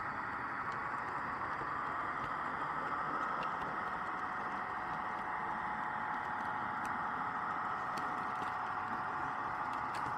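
H0-scale model train running on the track: a steady whir of the motor and gearing with the rolling of the wheels, and faint clicks now and then.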